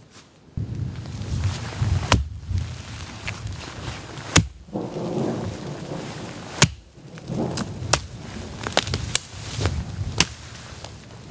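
An axe chopping at a small pine sapling: a series of sharp blows roughly one to two seconds apart, the pine's branches rustling between some of them. A low wind rumble on the microphone runs underneath.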